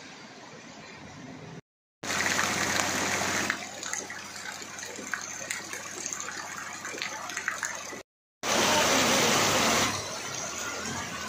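Heavy rain and running floodwater: a steady rushing hiss with a scattered patter of drops, cutting out dead twice for a moment between clips.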